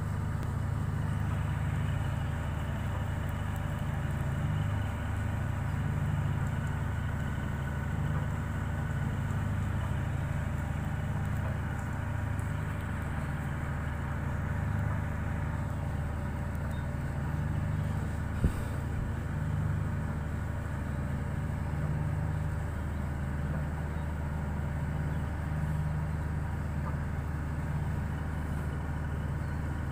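A ship's engine running steadily with a low, even rumble and a steady machinery hum. A single sharp knock comes about two-thirds of the way through.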